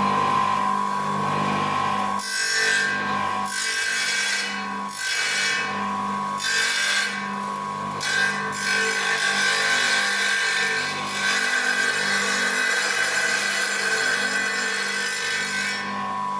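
Einhell TC-TC 618 wet tile saw running with a steady motor whine; from about two seconds in, its diamond blade grinds the edge of a ceramic tile to a 45-degree bevel in several passes. Each pass is a harsh grinding that covers the whine, and the longest comes last. The saw runs free again just before the end.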